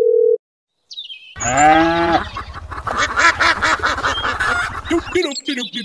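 A steady telephone tone cuts off at the start, then geese honking in a loud run of repeated calls over a low rumble that stops about five seconds in.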